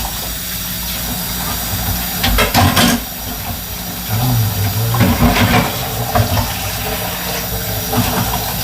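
Kitchen tap running into the sink while hands are washed under it, a steady rush of water with a few brief clatters of handling about two and a half and five seconds in.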